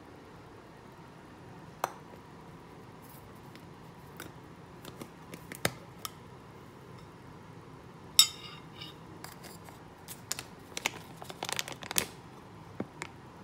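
A metal tea tin and its aluminium lid being handled, giving light scattered knocks and clicks. In the second half comes a run of crisp crinkling as the foil pouch inside is opened, its sharpest sound about eight seconds in.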